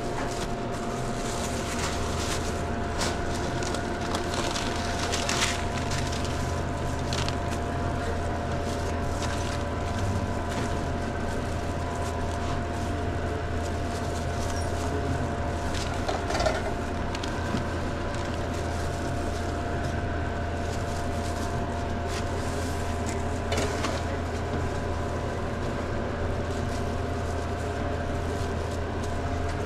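A steady low machine hum comes on about a second and a half in and cuts off near the end. Scattered light clicks and knocks of sandwich-making are heard over it.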